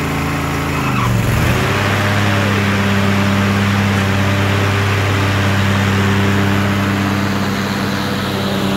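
Ariens riding mower's 20 horsepower V-twin engine running. Its note dips and recovers about a second in, then holds steady.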